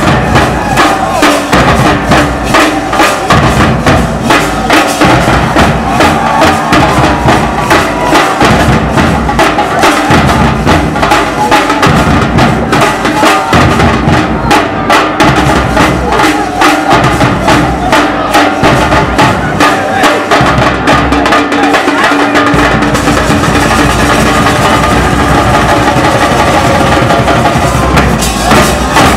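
Processional festival drums beating a fast, dense rhythm, with deep bass drum strokes under sharp stick strikes.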